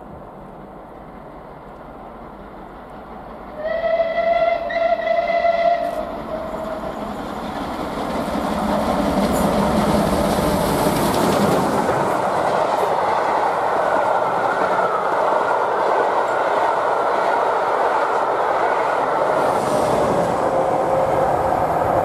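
Whistle of SR Merchant Navy class steam locomotive 35018, given in two blasts about four seconds in as the train approaches. Then the loud, steady rolling clatter of the locomotive and its coaches passing at speed.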